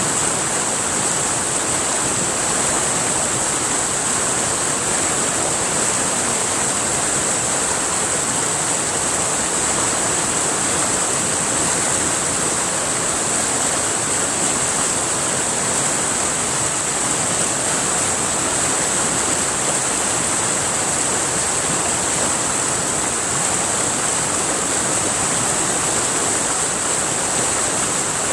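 River water rushing steadily, with a constant high-pitched hiss running over it.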